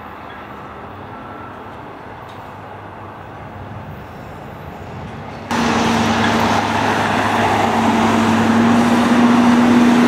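Steady machinery noise outdoors that jumps abruptly to much louder about halfway through, becoming a steady engine-like running with a constant low hum.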